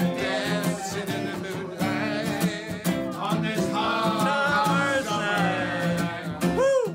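A man singing a song to strummed acoustic guitar, with a short swooping tone near the end.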